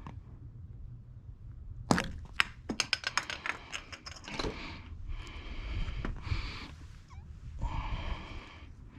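Hand work on small parts: a quick run of sharp plastic-sounding clicks and snaps, then rustling and scraping.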